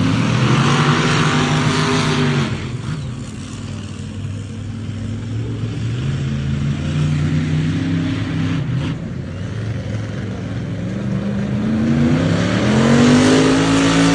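Monster truck engine revving hard, the revs falling away then building up again twice, climbing highest near the end.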